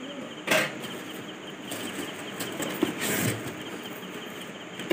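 Cardboard delivery box being cut and torn open, its packaging rustling, with a sharp rip about half a second in and another stretch of tearing around three seconds in.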